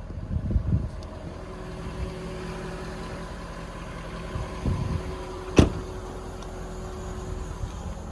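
Ford 6.7 Power Stroke diesel engine idling steadily, with a sharp click about five and a half seconds in.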